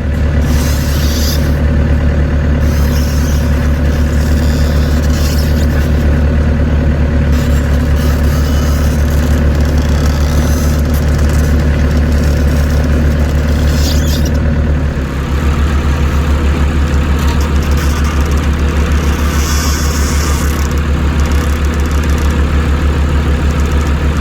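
Volvo ECR88 compact excavator's diesel engine running steadily, with brief high-pitched noises coming and going over it. The engine note changes about fifteen seconds in.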